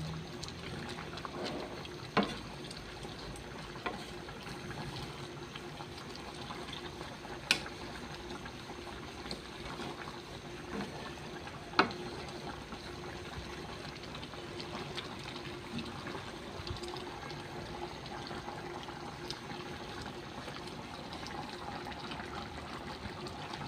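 A pot of chicken curry simmering with a steady watery sound. Three sharp clinks stand out, about two, seven and a half and twelve seconds in.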